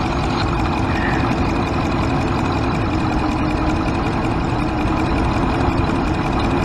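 2014 Dodge Ram V8 engine idling with a misfire on cylinder 7, which the mechanic traces to a damaged injector-harness connector.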